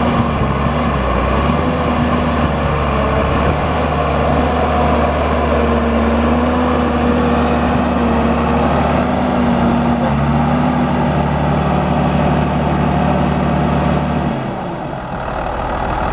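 John Deere 8400 tractor's six-cylinder turbo diesel running steadily. Its deep low note drops away about fourteen seconds in.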